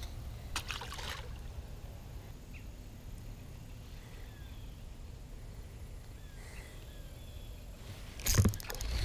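Steady low wind rumble on the microphone beside a pond. About a second in there is a brief splash as a small bass is tossed back into the water, and near the end there is a louder sudden noise.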